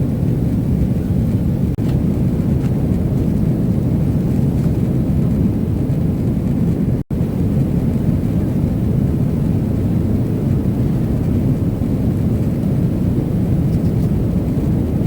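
Boeing 777-300ER cabin noise: a steady low rumble of engines and airflow heard inside the cabin, broken by a brief dropout about seven seconds in.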